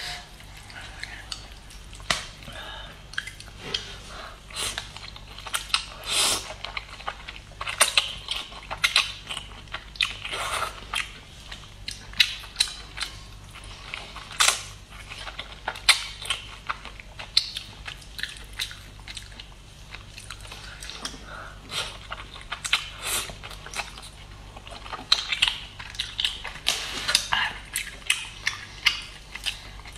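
Close-miked eating of instant noodles: slurping and chewing, with many short wet clicks and smacks from the mouth. A steady low hum runs underneath.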